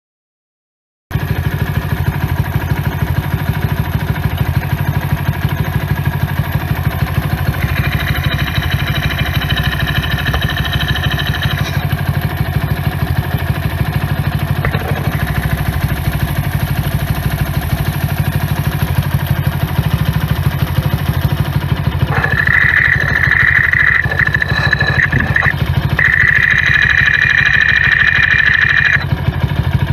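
Honda Little Cub's small single-cylinder four-stroke engine running steadily, the sound starting suddenly about a second in. A higher-pitched whine comes and goes twice over the run. It carries the abnormal noise the owner is tracing, with crankcase bearings, the cam chain and sprocket, or play in the primary driven gear among his suspects.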